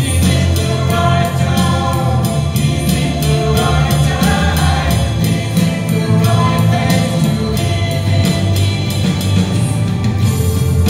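A rock band playing live: a singer's voice carries the melody over electric bass, electric guitar and drums, with a steady beat.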